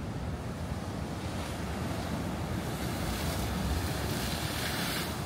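Ocean surf washing on the beach, with wind rumbling on the microphone; the wash swells about three seconds in.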